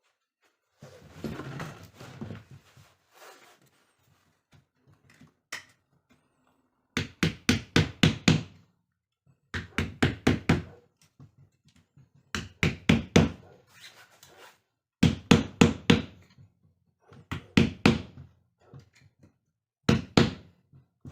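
Hammer taps in quick bursts of five to eight strokes, a new burst about every two and a half seconds, with a rustling scrape near the start.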